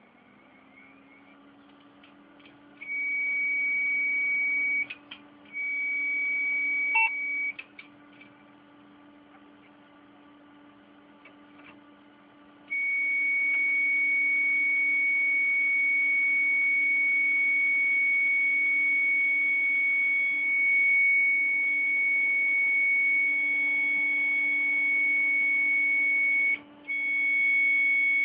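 Damaged hard disk drive in a running computer giving off a high-pitched steady tone: two beeps of about two seconds each, then an unbroken tone from about halfway through that drops out briefly near the end, over a low steady hum with a few faint clicks. The tone is the sign of the drive's damage.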